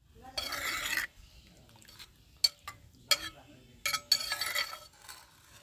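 A metal spoon stirring dried fish soaking in water in a clay bowl: two stretches of scraping and swishing, with a few sharp clinks of the spoon against the earthenware between them.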